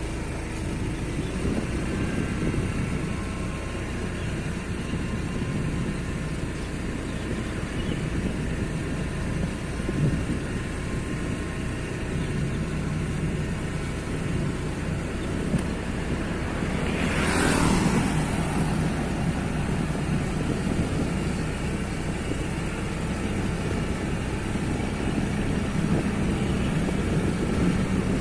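Steady road traffic hum, with one vehicle passing close about two-thirds of the way through, its sound falling in pitch as it goes by.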